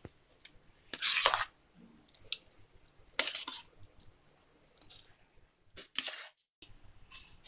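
A spoon scooping thick curd rice out of a steel bowl into another pot: three wet, scraping scoops, about one, three and six seconds in, with light metal clicks between.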